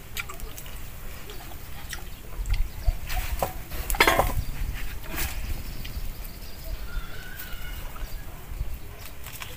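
Eating by hand: short sharp clicks and wet smacks as grilled pork is pulled off a wire grill and chewed with rice, loudest about four seconds in. A faint bird call sounds about seven seconds in.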